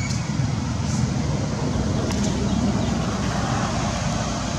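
Steady low outdoor rumble with an even hiss above it and a few faint ticks, like distant traffic or wind on the microphone.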